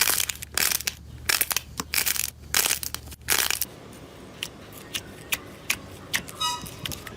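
Crunchy slime being pressed and squeezed by hand, a rapid run of loud crackling crunches for the first three and a half seconds. Then it turns quieter, with a few small scattered clicks and a brief squeak near the end.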